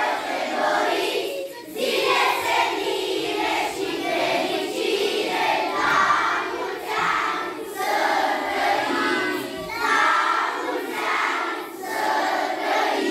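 A large group of young children singing together in unison, in short phrases with brief breaks between them.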